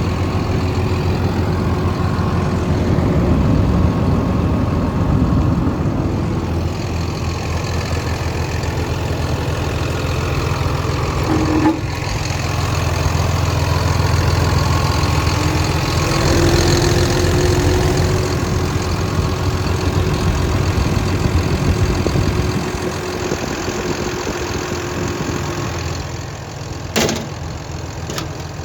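Caterpillar D6N bulldozer's diesel engine running steadily with a low rumble, easing off somewhat after about twenty seconds. A sharp click comes near the end.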